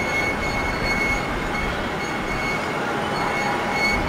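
Airbus A330-200's twin jet engines at takeoff thrust during the takeoff roll: a steady roar with a steady high whine over it.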